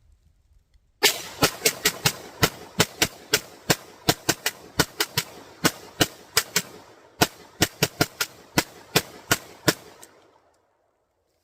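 A 3D-printed MAC-11-pattern 9mm pistol firing a mag dump: about two dozen rapid shots at roughly three a second, with a short break about two-thirds of the way through.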